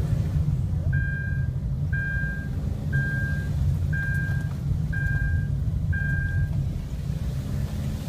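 Car driving, heard from inside the cabin: a steady low rumble of engine and tyres. Over it, six short electronic beeps at one pitch, about one a second, starting about a second in.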